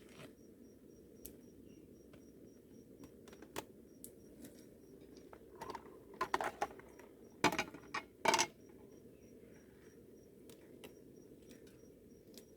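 A cricket chirping steadily, about four short chirps a second, over a low steady rush, with scattered sharp clinks and knocks, the loudest a cluster of three or four between about six and eight and a half seconds in.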